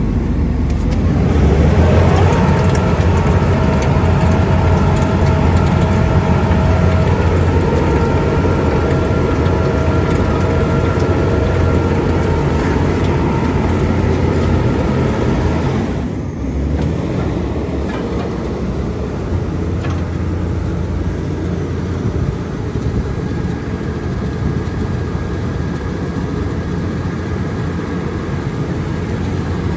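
Vögele Super 1900-2 asphalt paver's diesel engine running steadily with a whine over it. About halfway through it drops to a lower, quieter run.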